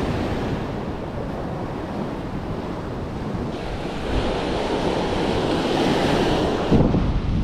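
Small surf breaking and washing up a sandy beach, with wind buffeting the microphone.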